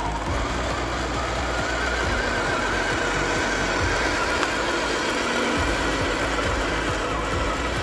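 Brushed electric motor and gear drive of a 1/10-scale RC crawler whining steadily as it drives, the pitch wavering slightly with the throttle.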